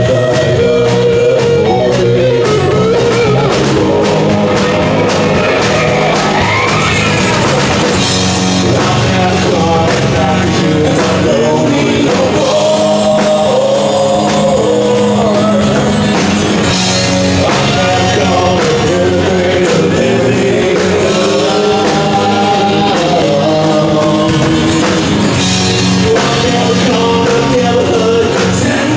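Rock band playing, with a male lead vocalist singing over electric guitar and drums.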